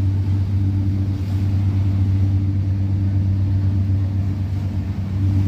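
Boat engine running at a steady speed: a loud, deep, even drone with a low hum and a couple of steady higher tones above it.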